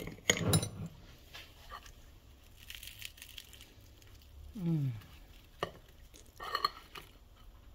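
Soft handling sounds as a piece of fried bannock is torn apart by hand over a plate, with a sharp knock about half a second in. About halfway through, a voice gives a short falling hum.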